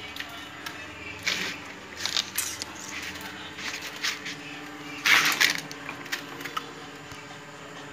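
Enamelled copper wire scraping and rustling in irregular bursts as it is pulled through and wound around a toroidal transformer core by hand, over a faint steady hum.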